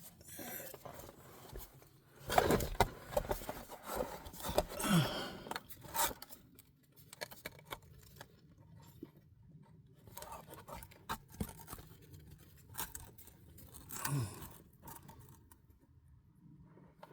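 Scattered clicks, scrapes and light metallic clinks of hand tools being handled and set down. A short falling vocal sound comes twice, about five seconds in and again near fourteen seconds.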